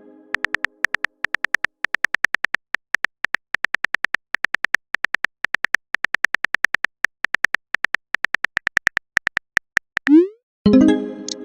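Text-scroll blip sound effect: a rapid, uneven run of short high electronic beeps, about six a second, stopping a second or so before the end. Near the end a short rising sound effect and a louder synthesized tone that dies away.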